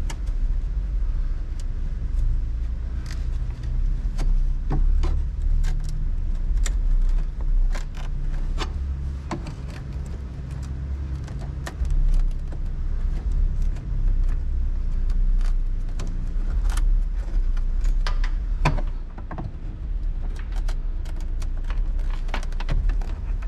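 Scattered clicks, knocks and light rattles of wiring and parts being handled, over a steady low rumble.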